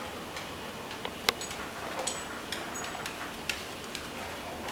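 Scattered light metallic clicks and clinks, about half a dozen, a few with a brief high ring; the loudest comes about a second in.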